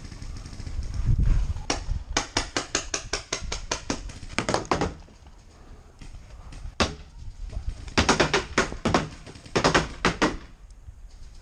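Paintball markers firing in rapid strings of shots, about six a second, broken by short pauses, with a single shot about seven seconds in.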